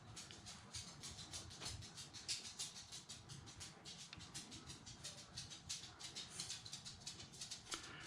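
Rapid, faint clicking, several clicks a second, from the pressure-up button of an EAFC cordless tire inflator being pressed over and over to raise the target pressure.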